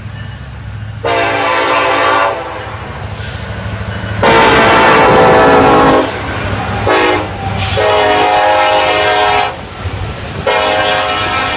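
Diesel freight locomotive's air horn sounding two long blasts, a short one and a long one, the standard grade-crossing warning, then one more blast near the end, over the low rumble of the passing train.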